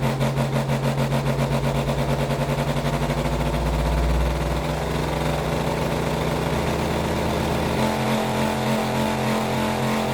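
Bass-heavy music played through a 12-inch, 1500 W RMS car-audio subwoofer under test: a fast, even pulsing that smooths out into sustained tones over a strong, deep bass that shifts about three quarters of the way in.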